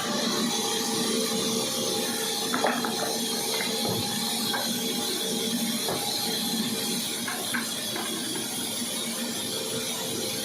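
A steady mechanical hum with a constant hiss, broken by a few light knocks.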